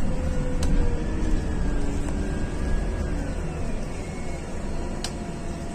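Scania CityWide CNG city bus heard from inside the passenger cabin while driving: a steady low rumble of the gas engine, drivetrain and tyres, with a faint whine that slowly falls in pitch. A couple of sharp rattling clicks come through, about half a second in and again near the end.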